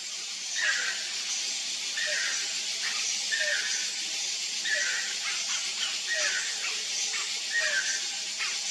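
Channel-billed toucan calling, one short croaking call about every second, each with a falling lower note, over a steady high hiss.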